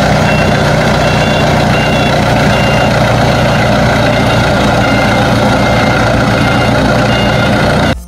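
Aircraft tug (airport tow tractor) moving a turboprop airliner: loud, steady engine noise, with a few short high beeps now and then.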